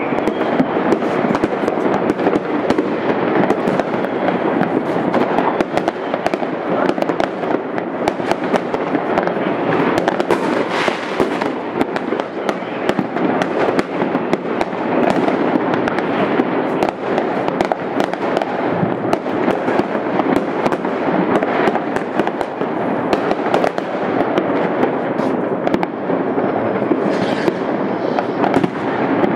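Fireworks and firecrackers going off without a pause: a dense, unbroken barrage of overlapping bangs and crackling.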